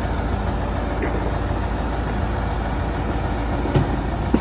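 Heavy diesel engine running steadily, with two brief sharp sounds near the end.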